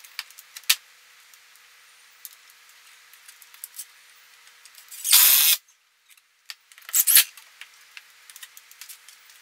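Scattered clicks and taps from a steel mini split wall mounting plate being handled and leveled against the wall, with two short bursts of a handheld cordless drill driving screws, about five and seven seconds in.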